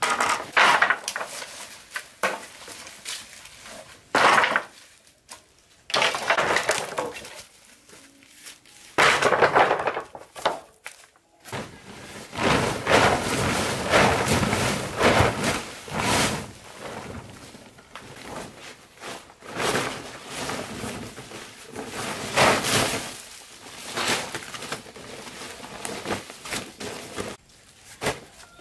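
Plastic tarpaulins being shaken out, flapped and thrown down, in repeated bursts of loud crinkling and rustling with short pauses between.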